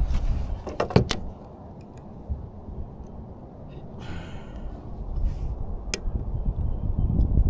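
Wind buffeting the microphone as a steady low rumble, with a few sharp handling clicks about a second in and again near six seconds, and a brief rustle around four seconds.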